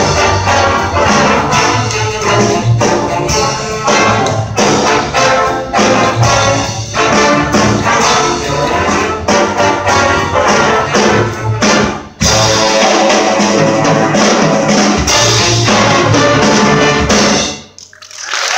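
School jazz big band playing: saxophones, trumpets and trombones over piano, guitar and upright bass, with busy brass figures. About twelve seconds in there is a short break, then a long held chord that cuts off sharply just before the end: the final chord of the tune.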